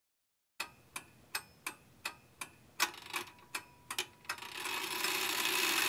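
Ticking-clock sound effect, sharp even ticks about three a second, starting about half a second in. In the last second and a half a hiss swells up under the ticks.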